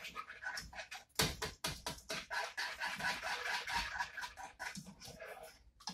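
Wire whisk scraping and clicking against a saucepan as cheese sauce is stirred, in quick irregular strokes.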